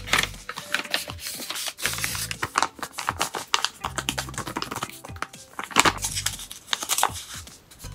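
Paper rustling and crackling in quick, irregular clicks as small handmade paper packets are handled and pulled open, over background music with a low bass note about every two seconds.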